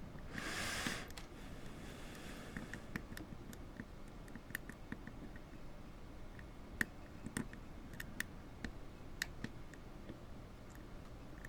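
Lock pick and tension wrench working the pins of a five-pin brass padlock during single pin picking: faint, scattered small clicks, with a few sharper ones past the middle. A brief hiss about half a second in.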